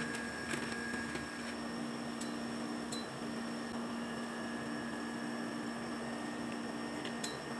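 A steady hum made of several held tones, with a few faint clicks.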